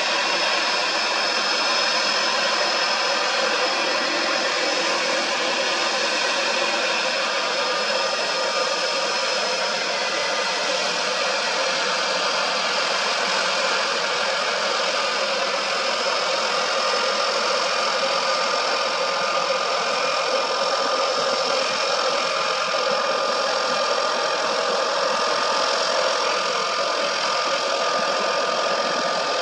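De Havilland Canada DHC-3 Turbo Otter floatplane's turboprop engine running at low power as it taxis on the water: a steady whine over a broad rushing sound.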